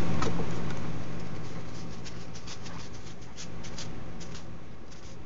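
Trading cards from a freshly opened Magic: The Gathering booster pack being handled and slid past one another in the hands: soft, scattered clicks and rustles of card stock, over a steady low hum.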